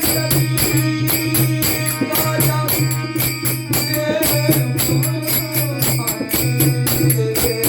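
Marathi devotional bhajan accompaniment: jingling hand percussion keeping an even beat of about four to five strokes a second over a sustained low drone and a melodic instrument line.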